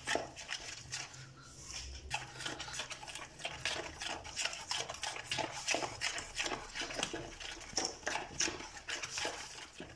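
Metal spoon beating thick gram-flour (besan) batter in a bowl, tapping and clicking against the bowl in a quick, irregular run.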